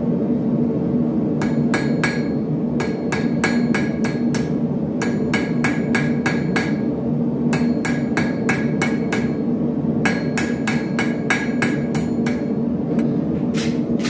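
Hand hammer striking red-hot steel bar stock on an anvil, in runs of quick ringing blows with short pauses between them. A steady low hum runs underneath.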